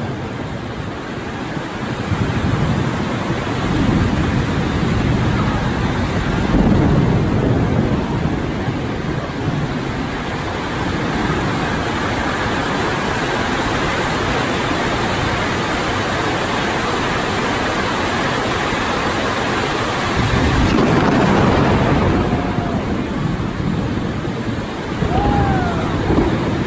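Heavy tropical storm rain pouring down with strong wind, a dense steady rush that swells with gusts a few seconds in and again about twenty seconds in.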